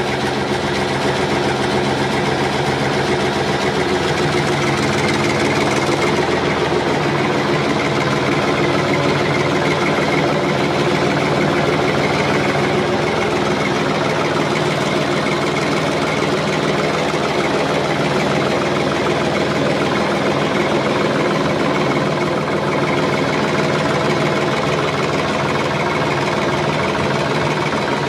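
Heavy farm-machine engine running steadily at an even speed, with no change in pitch.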